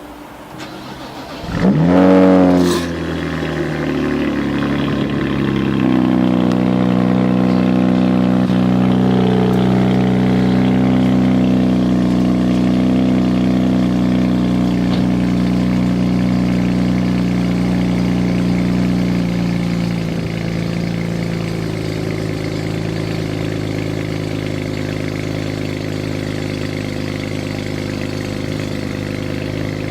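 Cold start of a BMW E93 335i's N54 twin-turbo inline-six: it catches about two seconds in with a brief rising flare, then settles into a steady fast cold idle that eases down slightly about twenty seconds in.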